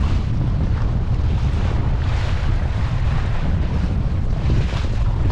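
Strong wind buffeting the microphone aboard a sailing boat under way: a heavy, continuous rumble under a rushing hiss that swells twice.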